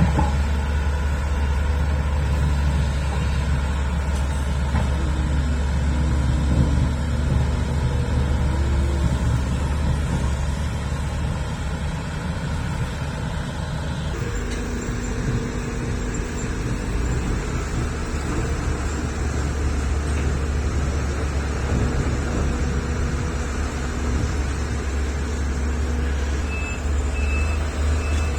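Heavy diesel engines of excavators and dump trucks running steadily under work. Near the end, a truck's reversing alarm starts beeping in short repeated tones.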